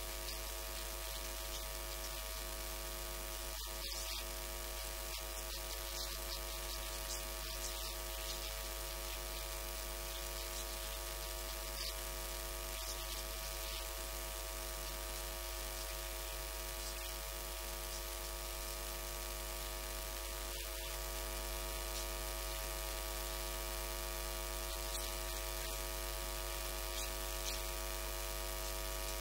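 Steady electrical mains hum and buzz, a stack of constant tones, typical of a ground-loop or interference hum on the audio line, which masks any speech.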